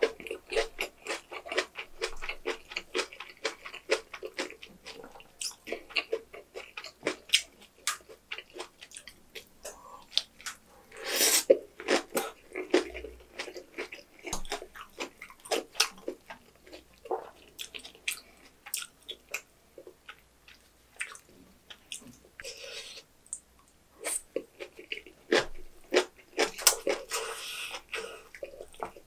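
Close-miked chewing of freshly made napa cabbage kimchi with rice: many quick, crisp crunches and wet mouth sounds, with a longer, louder wet burst about eleven seconds in.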